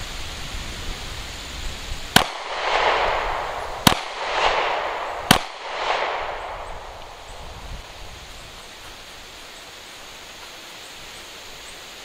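Three shots from a Smith & Wesson M&P Shield Plus 9mm pistol, about a second and a half apart, each sharp crack followed by about a second of echo rolling back off the range.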